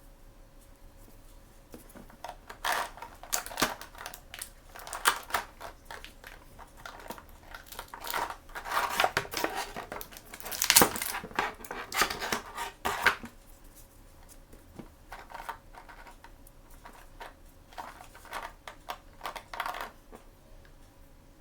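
Blind-bag and box packaging being handled and opened by hand: crinkling and tearing with small irregular clicks and taps. The sounds come in two spells, the second shorter and quieter.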